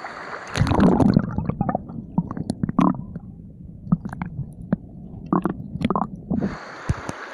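Underwater sound from a camera submerged in a river: muffled low rumbling with many scattered sharp clicks and knocks. The camera goes under about half a second in, with a loud splash, and comes back up near the end, when the hiss of flowing water returns.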